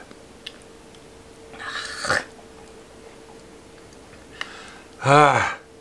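A person gagging in disgust after a swallow of thickened water: a short raspy throat sound about two seconds in, then a voiced groan that rises and falls near the end. A faint steady hum lies underneath.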